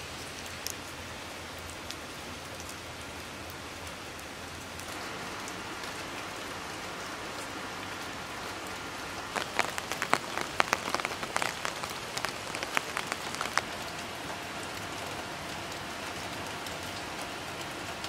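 Steady rain falling, with a flurry of sharp drip ticks for a few seconds about halfway through.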